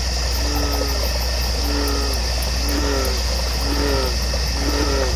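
Summer field and pond ambience: a steady high insect drone over a low steady hum, with a short, falling, two-toned animal call repeated about once a second.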